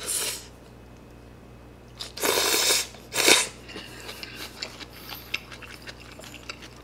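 A person slurping rice noodles from a bowl of noodle soup: a short slurp at the start, then two longer slurps about two seconds in, followed by soft, wet chewing.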